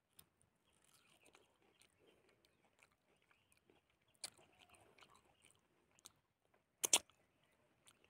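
Close-up chewing and mouth sounds of a person eating boiled fish and rice by hand, with soft wet clicks and smacks. A sharper click comes about 4 s in, and the loudest sound is a brief double click near the end.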